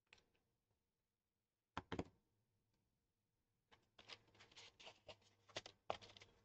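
Faint handling noises of lightweight model aircraft parts, mostly near silence: two light taps a little under two seconds in, then a run of small clicks and rustles from about four seconds on as the fuselage frame and a small part are turned in the hands.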